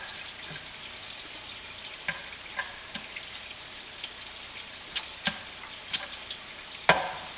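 Scattered small clicks and knocks of a paintball flintlock pistol being handled and loaded with a round, over a steady hiss. The sharpest click comes near the end.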